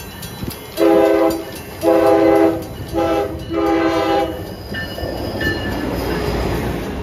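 Amtrak Acela Express trainset's horn sounding four blasts, long, long, short, long: the standard grade-crossing signal. The train's rumble and wheel noise then build as it runs past close by.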